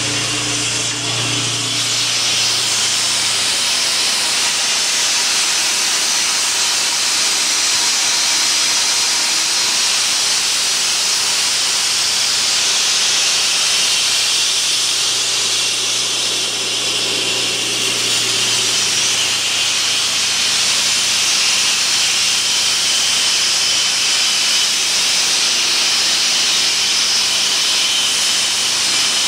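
Power concrete saw cutting concrete: a loud, steady high-pitched cutting noise that runs without a break, with a lower engine or motor hum that swells for a while in the middle.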